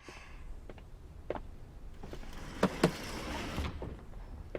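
A few light knocks and clicks, two of them close together about two and a half seconds in, over a soft hiss of room noise.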